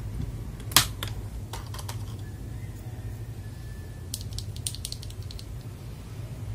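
Sharp plastic clicks from an FL Esports MK870 mechanical keyboard with AKKO Silver switches: one loud click about a second in, a few lighter ones just after, then a quick run of clicks around four to five seconds in. A steady low hum lies underneath.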